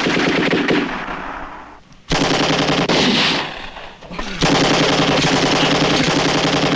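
Automatic machine-gun fire in three long bursts of rapid shots. The first trails off within the first two seconds, the second starts suddenly about two seconds in and stops just past the middle, and the third starts about four and a half seconds in and carries on.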